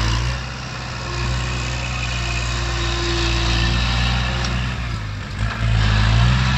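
Kubota tractor's diesel engine running under load while the tractor pushes loose soil with its front blade. The engine sags briefly about five seconds in, then picks up again and grows louder near the end.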